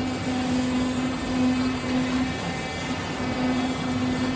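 CNC digital leather cutting machine running as it cuts quilted leather: a steady mechanical hum with a low tone that drops out briefly now and then.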